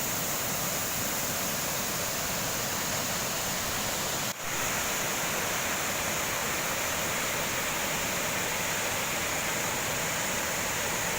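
Waterfall: a steady rush of falling water, with a brief break about four seconds in.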